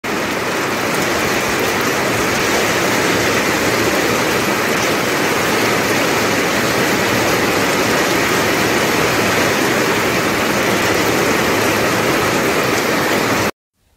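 Steady, loud hiss of falling water, like heavy rain, that cuts off suddenly near the end.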